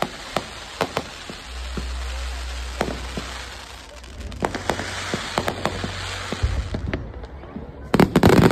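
Aerial firework shells bursting: a string of sharp separate bangs and cracks, then a rapid cluster of loud bangs near the end.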